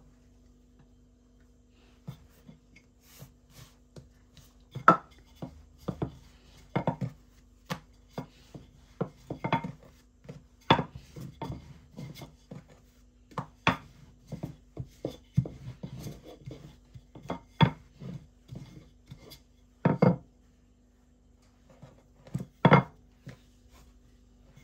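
Irregular sharp knocks and taps of a utensil on a kitchen work surface, starting about two seconds in and coming one or two a second, with a steady low hum underneath.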